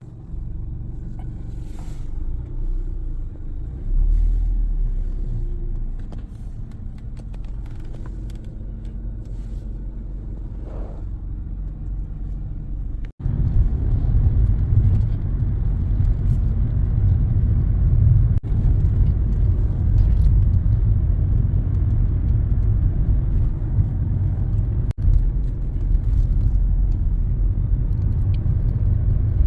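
A car on the move: a steady low rumble of road and engine noise, which grows louder about 13 seconds in and breaks off sharply for an instant three times.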